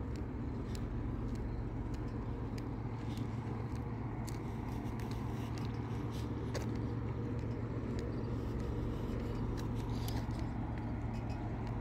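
Steady low hum and rumble of distant traffic-like background noise, with scattered faint clicks and rattles from a bicycle being walked along a paved path.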